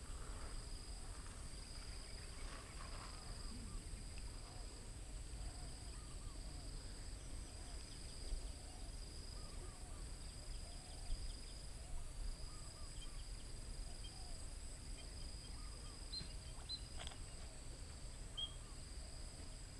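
Quiet outdoor ambience of insects: a steady high-pitched trill that pauses briefly every second or two over a fainter, higher constant drone. Scattered soft chirps come through, with a few sharper high chirps near the end, over a low rumble of wind.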